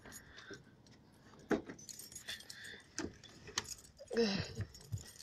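A key ring jingling with a few sharp clicks, as the car's keys are handled; a short falling tone sounds about four seconds in.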